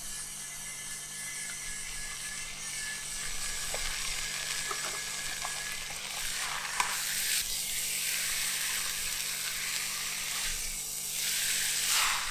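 Food sizzling as it is stir-fried in a hot pan, with a few sharp clicks of a utensil against the pan. The sizzle swells about halfway through and again near the end, where it is loudest.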